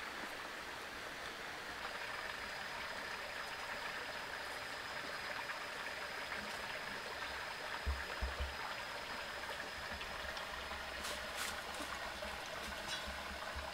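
Stream water running over rocks, a steady rush, with a thin high steady whine joining about two seconds in. A few dull low thumps come about eight seconds in.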